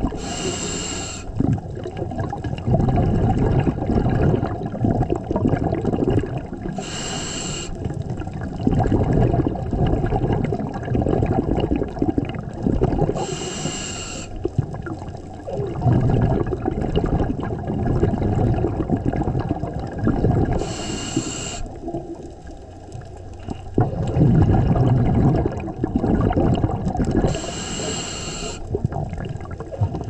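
Scuba diver breathing through a regulator underwater: five short hissing inhalations, about one every seven seconds, each followed by a long rumbling burst of exhaled bubbles.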